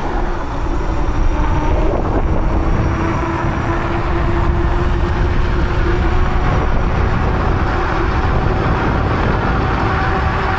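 Electric bike ridden along a road: heavy wind buffeting on the microphone and tyre rumble, with a faint steady whine from the drive.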